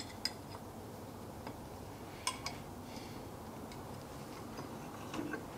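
A few light metallic clicks and taps from the lathe tool grinding jig as its tool holder is handled and pulled back from the grinding wheel: one a quarter-second in, two close together about two seconds in, and a couple near the end, over a faint steady background.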